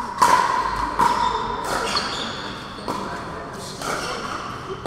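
Pickleball rally: sharp pops of paddles striking the plastic ball about once a second, each with a short echo off the hall.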